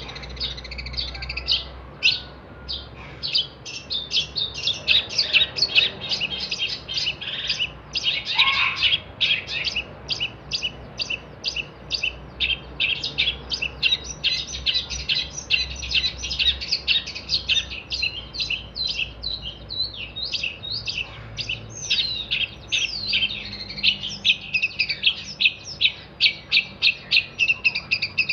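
Long-tailed shrike (cendet) singing a long, unbroken run of fast, high-pitched chattering notes, several a second.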